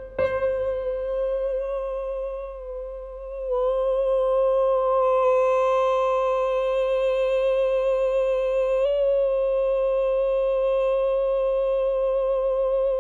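A male voice sustaining one long high note in flageolet register, leaned into the chest to sound more rounded, with light vibrato. It is softer for the first few seconds, then swells louder and holds steady.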